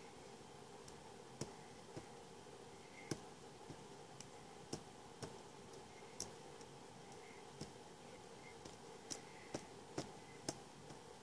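Light sharp clicks and taps at irregular intervals, about a dozen, as dots of glue are dabbed from a squeeze bottle onto a bookmark, over a faint steady hum.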